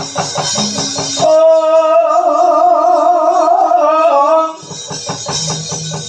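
Javanese gamelan music accompanying a wayang kulit, with a solo singer holding one long note with a strong vibrato from about a second in until about four and a half seconds. Quick struck percussion beats sound before and after the held note.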